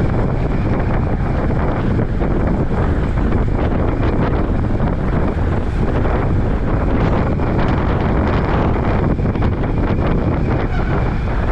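Steady, loud wind rushing over the microphone of a camera on a bicycle moving at racing speed.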